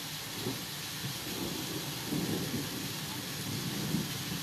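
Heavy rain pouring down steadily, heard from behind a rain-spattered glass door, with a low rumble swelling through the middle.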